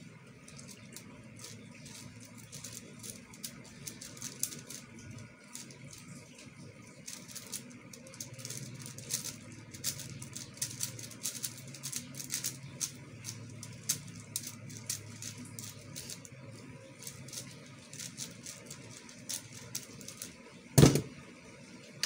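A QiYi speedcube being turned fast in the hands: quick, irregular clicking and rattling of layer turns. Near the end a single loud thump, the loudest sound, then the turning stops.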